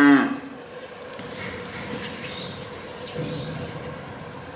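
A calf mooing, the call ending about a quarter of a second in, then a faint steady hum with a low, quieter call about three seconds in.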